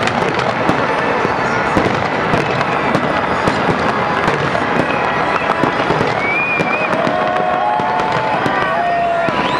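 Fireworks going off in a dense, continuous crackle of many quick bangs and pops. Voices from the watching crowd call out over it near the end.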